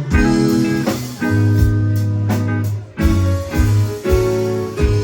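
Live rock band playing the opening of a song: drum kit, bass guitar, electric guitar and keyboards playing sustained chords over a steady beat, with no vocals yet.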